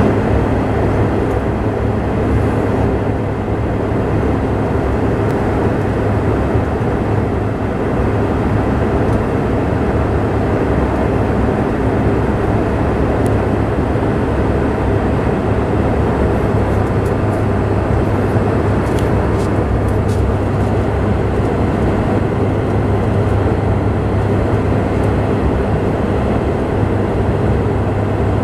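Airliner cabin noise in flight: a steady roar of jet engines and rushing air, with a constant low hum underneath.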